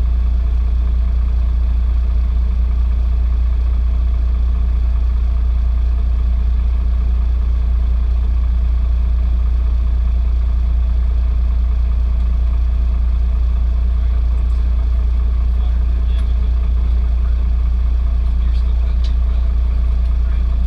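Fire pumper's diesel engine running with a steady low drone.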